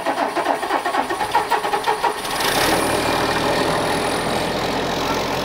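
Case IH Magnum 305 tractor's six-cylinder diesel engine starting: it cranks with an even pulsing beat, catches about two seconds in, and settles into a steady idle.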